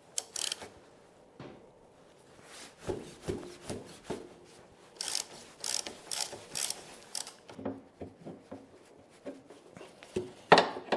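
Ratchet wrench clicking in short strokes on the lower bolt of a Lambretta's BGM rear shock absorber as it is undone, with one sharp metal knock near the end.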